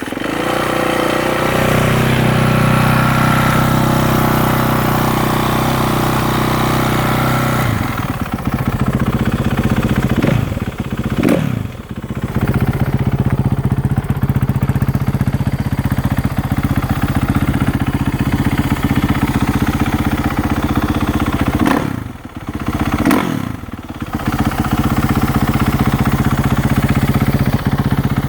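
2014 Kawasaki KX450F's single-cylinder four-stroke engine catching as it is fired up, then running at a fast idle for about eight seconds before settling to a lower, steady idle. The revs briefly change twice, about ten seconds in and again past twenty seconds.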